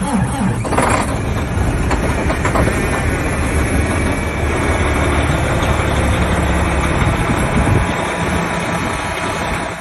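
Heavy-truck diesel engine running at idle just after a cold start at about −30 °C, a steady low rumble. A short, sharper noise comes about a second in.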